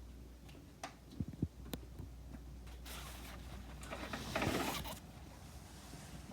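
A door being unlocked and opened: a few sharp clicks and light knocks, then a scraping, rustling noise for about two seconds.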